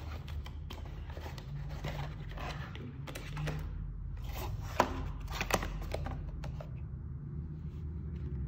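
A cardboard product box and its plastic tray being handled: scraping and rustling with scattered sharp clicks and snaps as the box flap is pulled open and the tray slid out, the two sharpest snaps about five seconds in, over a steady low hum.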